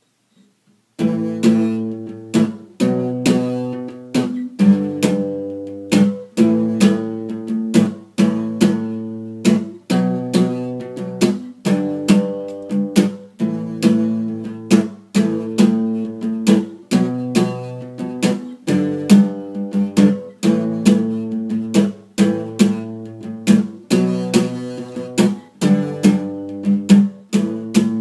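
Acoustic guitar strummed in a steady rhythm, starting about a second in, with the chords changing every couple of seconds.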